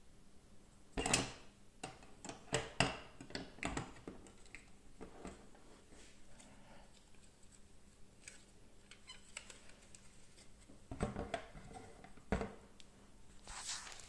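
Scattered small clicks, taps and rustles of a Zippo lighter and its plastic box being handled as the lighter is put back in the box. The clicks come in clusters: about a second in, between about two and four seconds, and again near the end.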